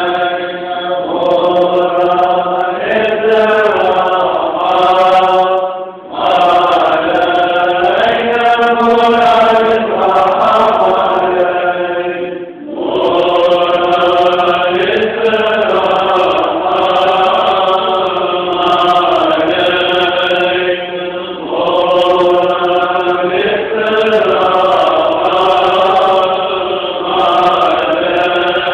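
A group of monks singing Syrian Orthodox liturgical chant together, in long continuous phrases with short pauses for breath.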